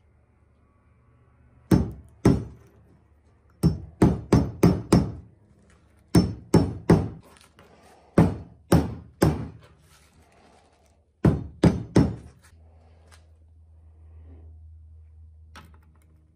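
A hammer striking a lead button on a metal block, knocking the glassy slag off it after a fire-assay smelt: about sixteen sharp strikes in bursts of two to five, ending about twelve seconds in.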